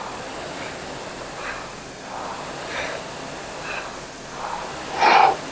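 Concept2 indoor rower's air-resistance flywheel whooshing under hard sprint strokes, with the rower's heavy breathing. A louder exhale comes about five seconds in.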